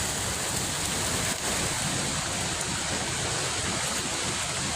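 Steady rushing noise of hurricane wind, with a rumble from wind buffeting the microphone.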